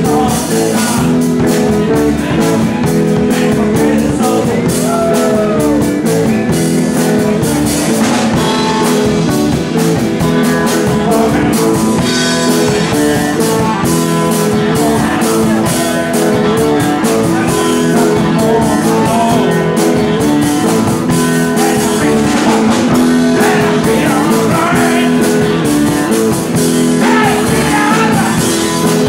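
Live rock band playing: electric guitar, bass guitar and drum kit, at a steady loud level.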